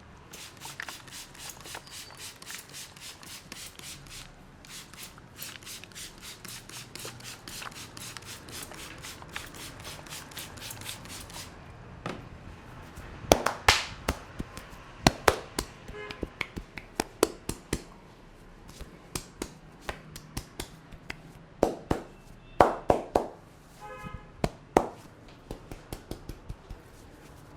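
Barber's hands working a head massage: fast, even rubbing or tapping strokes on the scalp and hair, about five a second, for the first eleven seconds or so. After that come loud, sharp snaps and slaps in irregular runs, the snaps typical of hair cracking.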